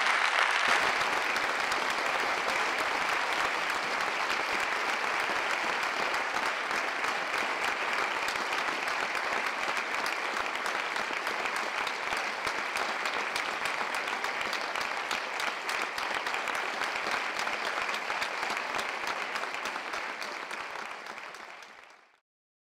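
Audience applauding, a dense steady clapping that is loudest at the start and fades out near the end.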